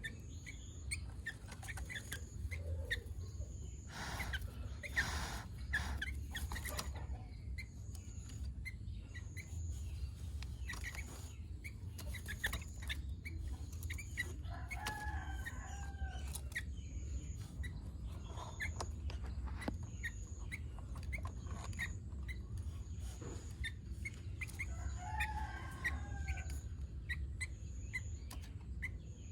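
Sooty-headed bulbul chirping in scattered short notes, with two longer calls about ten seconds apart. A faint high pip repeats about every second and a half over a steady low hum.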